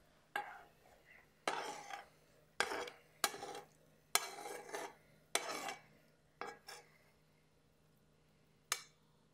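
A metal spoon scraping and knocking against a non-stick frying pan as cooked rice stir fry is scooped out. There are short scrapes and clinks about a second apart, each with a brief ring, then a quieter stretch and one last clink near the end.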